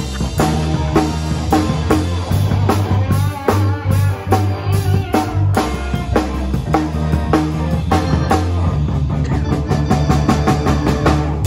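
Live rock band playing: a drum kit keeping a steady beat under electric guitars.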